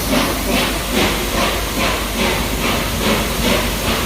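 The three-cylinder exhaust of the Peppercorn A1 Pacific steam locomotive Tornado chuffing at a steady beat of about three a second, with steam hissing.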